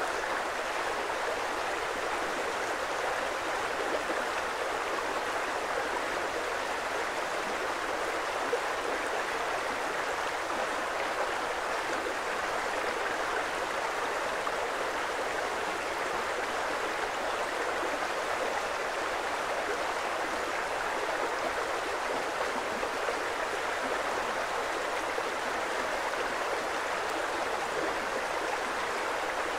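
Creek water flowing in a steady, unbroken rush.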